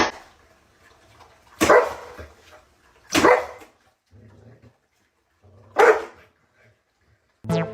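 A dog barking three single barks, a second or two apart. Music starts near the end.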